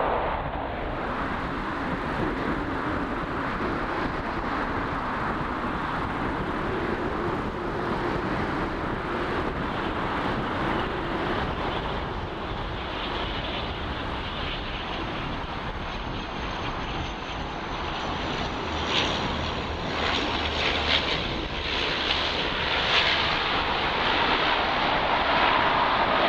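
De Havilland Canada Dash 8 turboprops, engines and propellers running: first one on the runway, then another on final approach to landing. A steady drone that grows a little louder near the end.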